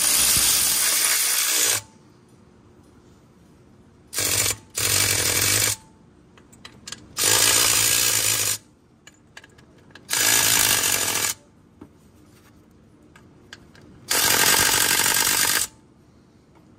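Air ratchet run in six short bursts of up to about two seconds, a few seconds apart, running down the bolts that hold the fan clutch to the water pump pulley.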